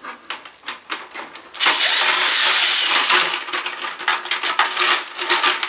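Clicks and knocks of plastic printer parts being handled and forced apart, with a loud rasping noise lasting about a second and a half near the middle.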